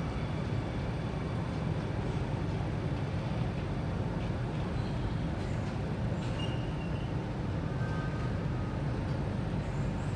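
Steady low hum of an Alstom Metropolis C830C metro train standing at a station platform, its onboard equipment running, with a few faint short tones about six and eight seconds in.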